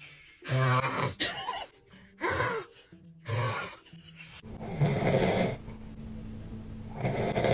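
A person snoring loudly in a run of about five snores, each a second or so apart. The first few are short and buzzing; the last two are longer and rougher.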